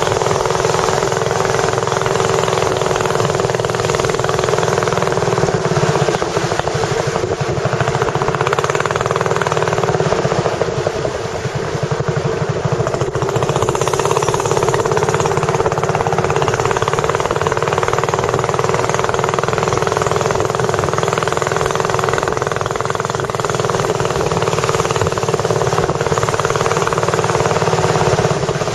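Tourist boat's engine running steadily under way, a fast rattling drone that holds level throughout.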